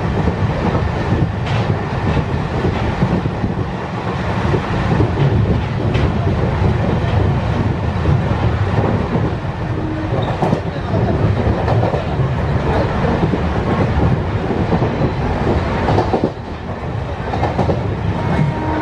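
MEMU passenger train running at speed, heard at an open doorway: a steady rumble of wheels on the rails with a few sharp clacks, dipping briefly near the end.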